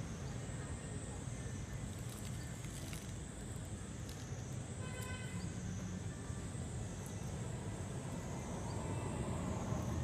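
Steady outdoor ambience: a low rumble under a high buzz that swells and fades about every second and a half, with a brief high call about halfway through.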